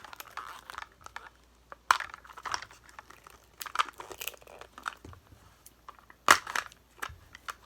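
Thin plastic wrapping being crinkled and peeled off by hand, with small plastic pieces clicking, in scattered bursts. The sharpest crackle comes about six seconds in.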